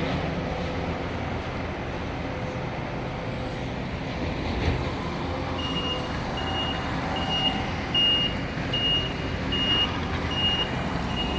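Steady low rumble of heavy engines, with a single knock midway; from about halfway through, a vehicle's backup alarm beeps about twice a second, the sign of a machine reversing.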